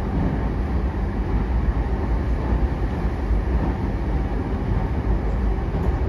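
Running noise inside a JR E233-8000 series electric commuter train at speed: a steady rumble of wheels on rail and car body.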